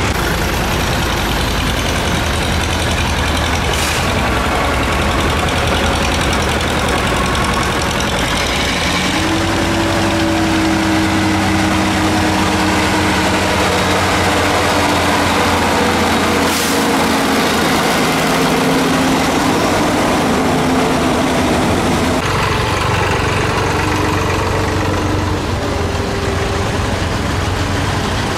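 Tractor engines running steadily as several tractors drive slowly past one after another. One engine's note stands out in the middle and falls slightly in pitch as it passes.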